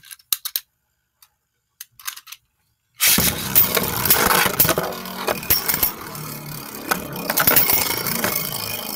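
A few small clicks, then about three seconds in Beyblade spinning tops are launched into a plastic stadium and start spinning and clattering against each other, a loud steady whirring and scraping with many small hits.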